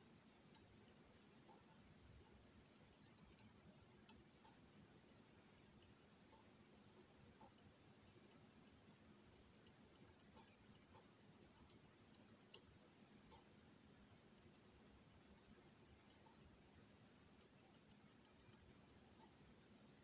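Faint, irregular clicks and ticks of a lock pick and tension wrench working inside a Miwa/Anker 3800 cylinder. The clicks come in small clusters, with one sharper click past the middle.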